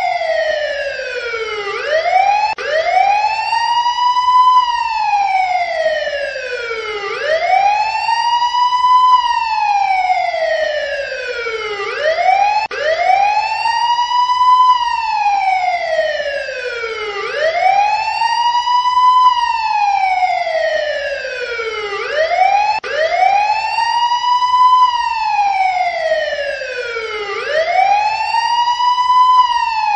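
Emergency-vehicle siren in a slow wail, its pitch rising and falling in even cycles of about five seconds each, over and over.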